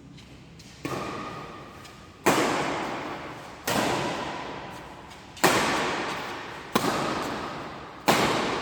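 Badminton rally: rackets hitting a shuttlecock six times, about once every second and a half, with hits alternating louder and softer from the near and far ends of the court. Each hit echoes in a large sports hall.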